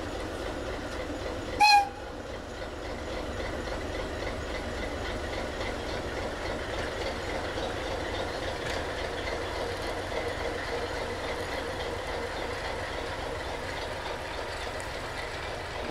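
ČKD class 742 diesel shunting locomotive running as it pulls slowly away, giving one short horn toot about a second and a half in.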